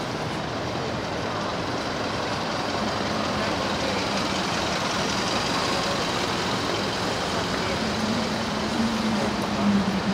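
City street traffic, a steady wash of road noise. A motor vehicle's engine hum comes in after a few seconds and grows louder near the end as it comes close.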